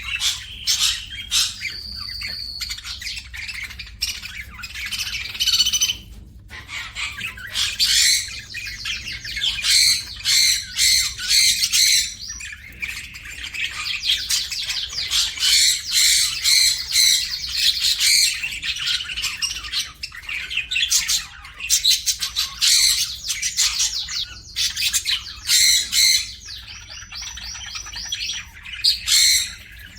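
Several small pet birds chirping and squawking all at once, many short, rapid calls overlapping with only brief lulls.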